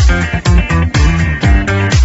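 Background music: funky electric guitar and bass over a steady beat.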